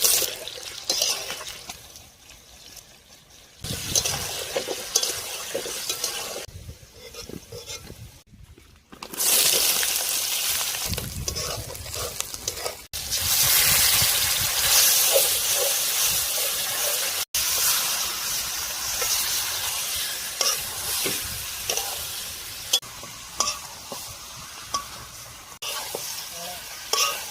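Pork frying and sizzling in a pan while it is stirred, with small scrapes and clinks of the spoon against the pan. The sizzle jumps abruptly louder and quieter several times, loudest from about a third of the way in to past the middle.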